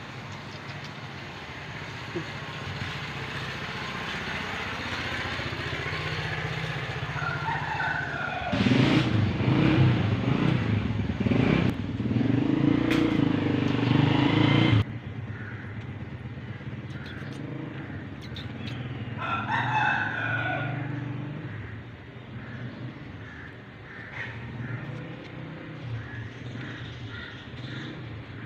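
Street ambience: a motor vehicle engine runs loudly for about six seconds, starting about eight seconds in and cutting off suddenly, and a rooster crows once a few seconds later.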